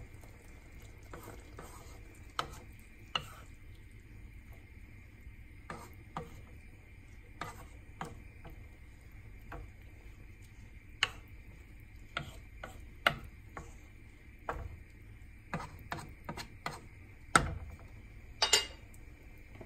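Wooden spatula knocking and scraping against a nonstick wok while stirring and pressing rice noodles into sauce. The clicks come irregularly, with the loudest knocks near the end.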